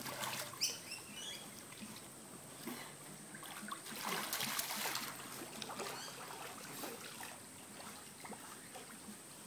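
Pool water splashing and lapping as a dog and a person swim through it, louder for a stretch about four seconds in.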